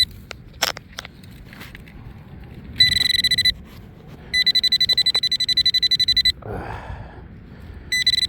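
Nokta Accupoint pinpointer beeping in rapid pulses, in three bursts of about half a second, two seconds and half a second: it is signalling metal close to its tip. Low wind rumble and a few scraping clicks in the dirt run underneath.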